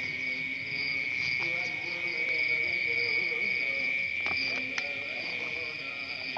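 A chorus of night insects: a steady high trill with a higher chirp pulsing about three or four times a second over it. A few brief clicks and rustles about four seconds in come from hands handling the cactus flowers.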